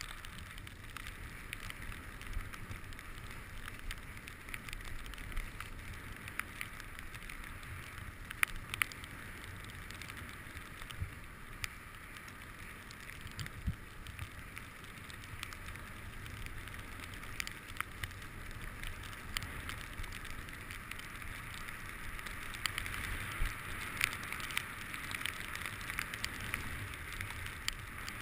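Skis sliding over snow: a steady hiss with scattered clicks and scrapes, a little louder in the last few seconds.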